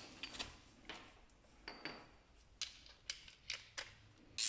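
A few light, scattered clicks and knocks of objects being handled, with a louder, slightly longer knock near the end.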